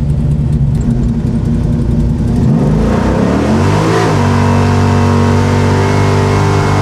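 Chevrolet 502 big-block V8, fitted with a cam and an Alien intake and running a freshly richened tune, rumbling at low revs for about two and a half seconds. It is then floored: the revs climb quickly and hold at a high, steady pitch as the car accelerates hard.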